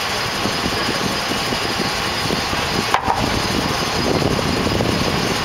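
Mobile crane diesel engines running steadily during a heavy lift, with one short click about three seconds in.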